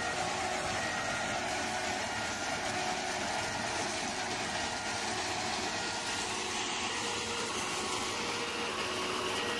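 Railway ballast cleaning machine running steadily, with spoil pouring off the end of its conveyor belt in a continuous stream; a dense, even noise with short, faint tones coming and going over it.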